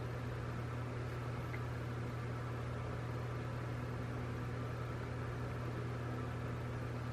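Steady low hum with an even hiss: room background noise, with no clear sound from the beadwork.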